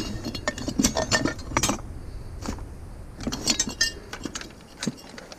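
Glass and metal items clinking and knocking together as they are handled and moved by hand, in two clusters of clatter, about a second in and again just past the middle.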